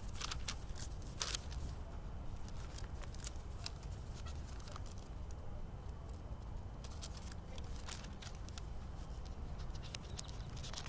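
Pages of a Bible being turned and rustled by hand: a scattered run of short papery flicks and crackles over a steady low hum.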